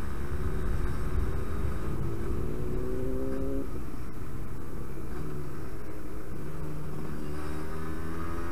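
Yamaha RD125 LC YPVS two-stroke engine accelerating under way. Its pitch climbs for about three and a half seconds, drops suddenly at a gear change, then climbs again near the end.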